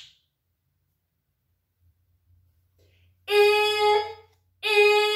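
About three seconds of near silence, then a woman's voice sounding the short-i letter sound as a high, steady, drawn-out vowel, twice.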